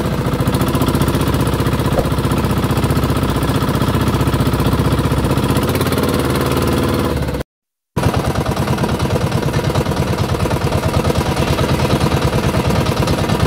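Small outrigger fishing boat's engine running steadily with a fast, even chugging pulse. The sound drops out for about half a second partway through, then carries on unchanged.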